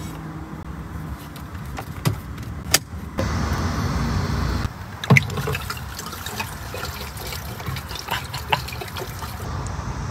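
Sharp clicks of plastic car trim being handled, then a few seconds of liquid pouring from a glass bottle into a car's plastic windshield washer fluid reservoir, followed by more scattered clicks and rattles.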